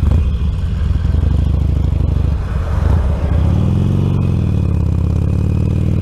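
Motorcycle engine pulling away: a low rumble at first, then the revs rise about three and a half seconds in, dip near five seconds and settle into a steady run. Heard through a microphone inside the rider's crash helmet.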